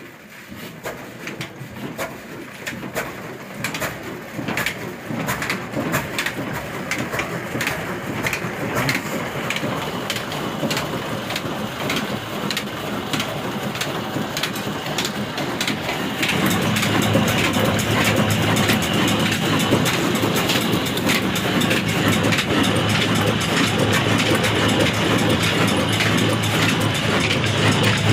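Old black 24 HP horizontal single-cylinder diesel engine with a big flywheel, just hand-started and running up to speed: its regular firing beats quicken and grow louder. About halfway through it settles into a louder steady run with a low hum and a high whine from the belt drive.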